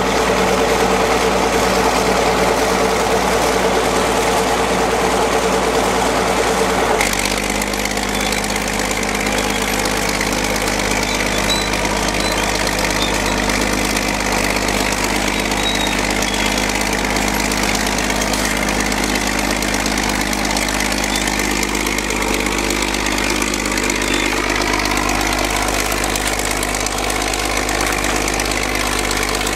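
Bulldozer's diesel engine running steadily, its note shifting abruptly about seven seconds in and then holding steady.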